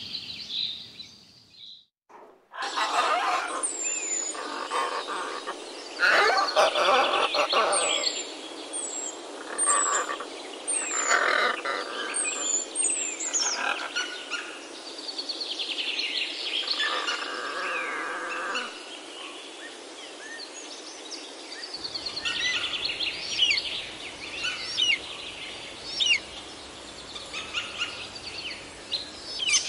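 Mixed birdsong: several small birds chirping and calling over a steady outdoor hiss, with short, high, falling whistles repeated several times in the first half.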